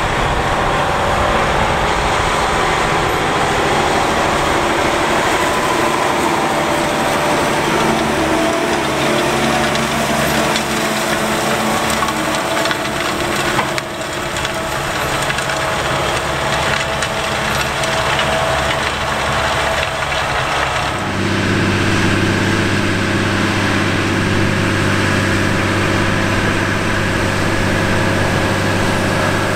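Large Case IH Steiger and Quadtrac four-wheel-drive tractor diesel engines running under load while pulling tillage and seeding implements across a field, in successive clips. About 21 seconds in the sound changes to a steadier engine note with a strong low hum.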